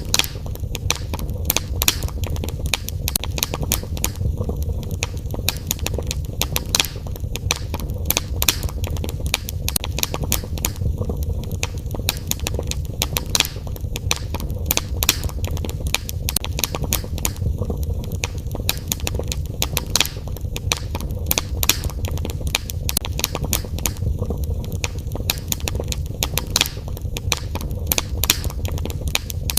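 Fireplace fire crackling: frequent, irregular sharp pops and snaps over a steady low rumble.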